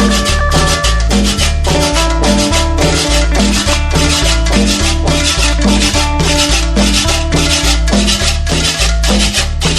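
Loud Latin dance music played over a big sound system, with a heavy, regular bass beat and shaker percussion.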